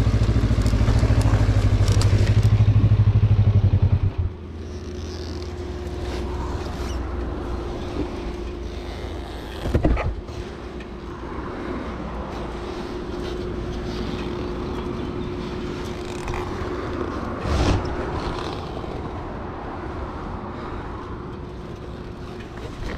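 Kawasaki KLE500's parallel-twin engine running loud and steady at high revs, then dropping suddenly to a low idle about four seconds in. Two sharp knocks come over the idle, one near the middle and one later.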